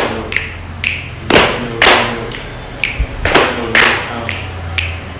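Sharp percussive strikes in a steady rhythm, about two a second, many with a short bright ringing tail, over a low hum.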